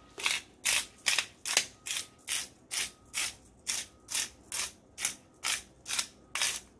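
Pepper grinder being twisted to grind peppercorns, a steady run of short crunchy ratcheting strokes, about two a second.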